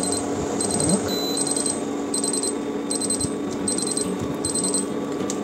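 Induction cooktop beeping: about seven quick groups of high electronic pips, one group every three-quarters of a second, stopping about five seconds in. Under the beeps is the steady hum of the cooktop.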